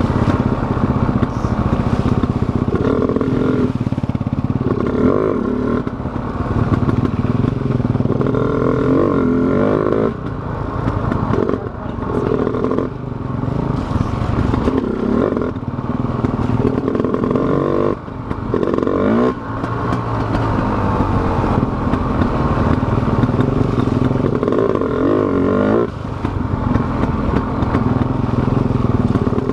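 KTM Freeride dirt bike's engine running under the rider, revs rising and falling again and again with the throttle, with dips as she rolls off a few times. The bike rattles and clatters over the rough trail.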